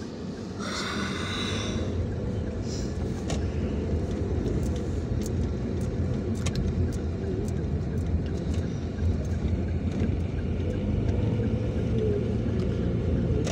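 Steady low rumble of a vehicle's engine and road noise, heard from inside the moving vehicle, with a short hiss about a second in and a few light clicks.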